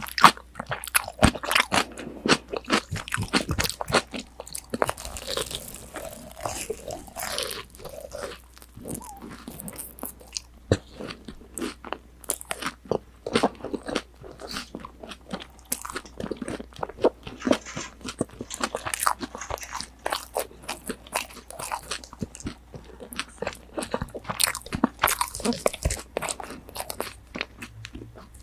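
A person chewing crispy breaded tonkatsu close to a binaural microphone: dense, irregular crunching of the fried coating, with bites and chewing sounds following each other.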